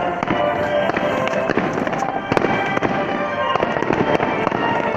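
Fireworks display: a dense run of firework bangs and crackles, several a second, over music with steady held notes.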